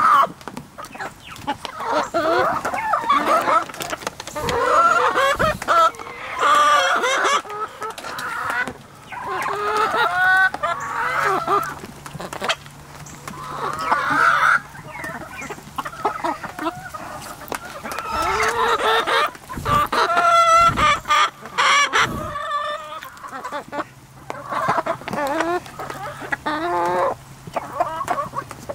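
A flock of backyard hens clucking and squawking as they crowd round a hand offering treats, with a rooster crowing among them.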